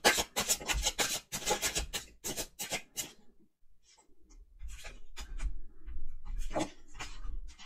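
A deck of tarot cards being shuffled by hand: a quick run of rustling card flicks for about three seconds, a short pause, then a few scattered card sounds.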